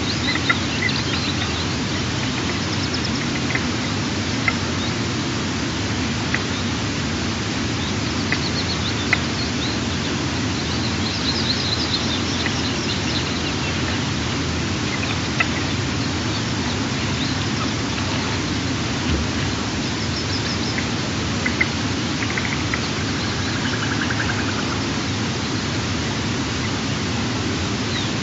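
Steady outdoor rushing noise, like wind on the microphone, with small birds chirping high in the background several times and a few short sharp clicks scattered through.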